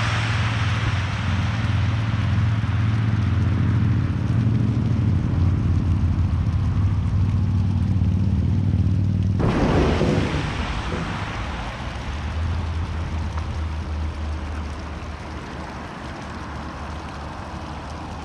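Car tyres running through the water on a wet skid pad: a spraying hiss over a steady low hum. The hiss fades, breaks off sharply about nine and a half seconds in, then comes back as another pass and fades again.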